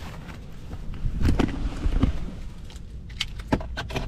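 A scatter of light clicks and knocks at the open driver's door of a 2023 Kia Sportage Hybrid, over a low steady rumble.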